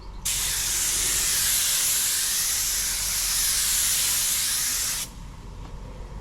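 Compressed-air paint spray gun triggered for one continuous pass of about five seconds, spraying a coat onto the car panel. It is a loud, steady hiss of atomising air and paint that starts and cuts off sharply.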